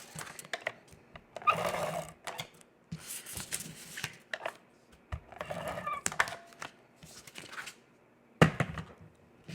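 Paper and cardstock being handled and pressed together on a work surface: several short rustling, scraping bursts with scattered clicks, and a sharp thump near the end.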